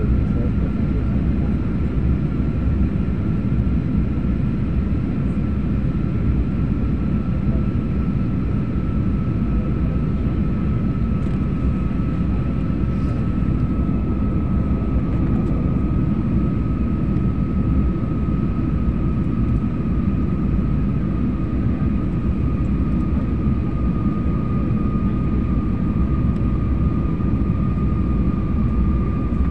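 Steady cabin noise of a jet airliner on its approach: a low rumble of engines and rushing air, with a high engine whine that slowly sinks in pitch.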